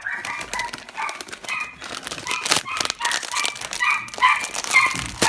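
Small dog yapping repeatedly over crinkling and tearing of a snack package's plastic wrapper as it is opened.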